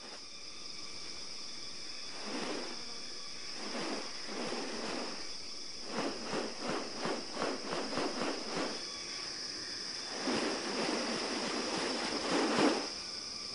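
Rainforest ambience: a steady high insect drone, with bird sounds coming in bursts, one of them a quick run of about four pulses a second in the middle.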